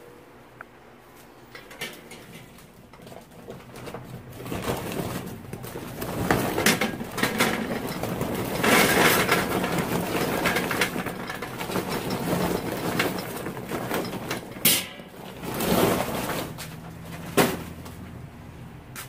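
Charcoal briquettes poured from a paper bag into a metal charcoal chimney, clattering and rattling as they tumble in. The clatter builds from a few seconds in, and a few louder single knocks come near the end.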